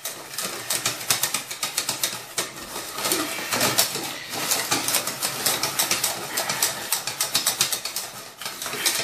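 Wire balloon whisk beating a thick egg-and-flour pancake batter in a stainless steel pot, rapid even strokes several a second, working the batter until there are no more lumps.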